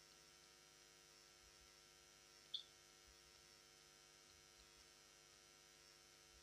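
Near silence: a faint steady electrical hum, with one brief high-pitched tick about two and a half seconds in.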